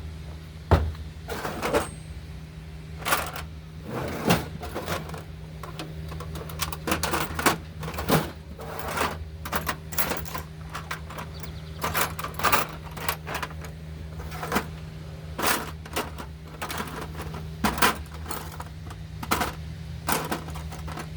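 Irregular metallic clicks and clatter of chainsaw bar, chain and hand tools being handled and set down, over a steady low hum.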